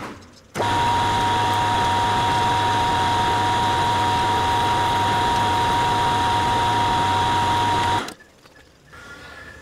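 Hafco AL336 metal lathe running while a twist drill in the tailstock chuck bores a 6 mm hole in a steel bolt head: a steady mechanical hum with a steady whine. It starts abruptly about half a second in and stops abruptly about eight seconds in.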